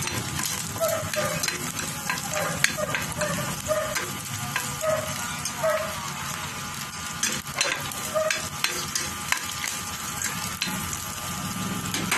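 Ground meat frying in hot oil in a stainless steel pan, sizzling and crackling steadily, with a metal spoon stirring and clicking against the pan.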